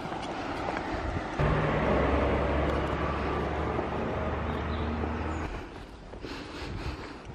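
A car driving past close by: engine hum and tyre noise come in suddenly about a second and a half in, hold for about four seconds, then fall away.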